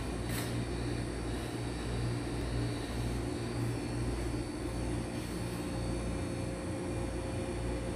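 Steady low mechanical hum with no change in pitch, with a couple of faint clicks near the start.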